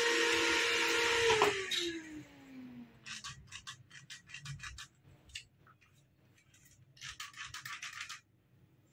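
A loud steady hiss with a whine in it cuts off about a second and a half in, and its pitch slides down as it dies away. It is followed by short, irregular scraping and rubbing sounds.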